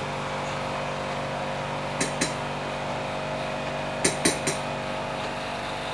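A metal utensil clinking against a steel cooking pot as the pot's contents are stirred: two clinks about two seconds in and three more about four seconds in, over a steady hum.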